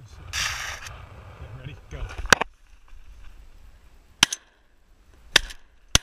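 Dry reeds of a duck blind rustling as the hunter moves, then four sharp, short cracks spread over the next few seconds, the loudest about two seconds in.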